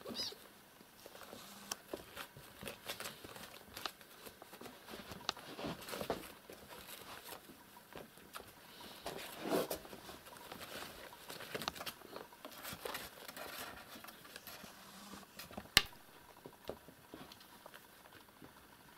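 Kittens scampering and tussling on the floor: a faint, irregular patter of small paws with soft scuffs and rustles, and one sharper click late on.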